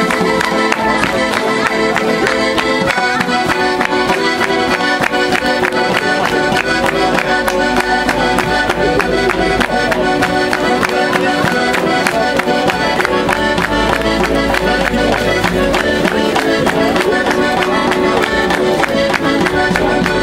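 Circassian folk dance music led by an accordion, with a fast, even beat of sharp clicks running under the melody.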